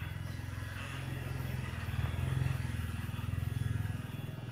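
GSE 009 cordless electric hair clipper running with a steady low hum, its blades cutting through beard stubble on the neck.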